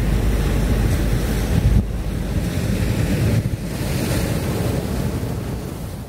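Wind buffeting the microphone: a continuous rushing noise with an uneven low rumble.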